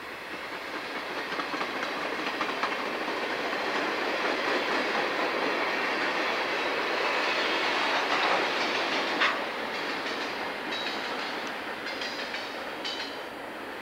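Loaded ballast hopper cars rolling past on jointed rail, wheels clicking over the rail joints. The sound builds, then fades as the last cars pull away, with one sharp clank about nine seconds in and a few short high squeals near the end.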